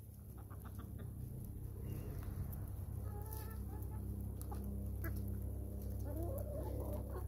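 Hens clucking softly as they feed, a few short calls about three seconds in and a longer wavering run of clucks near the end. A steady low hum runs underneath.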